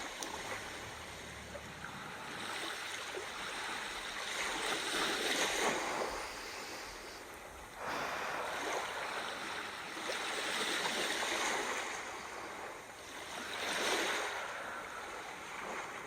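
Ocean surf: waves washing in and drawing back, rising and falling in slow surges.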